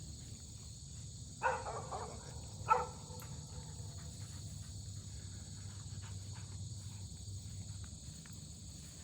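A dog barks twice, about a second apart, with the second bark the louder, over the steady high trill of insects.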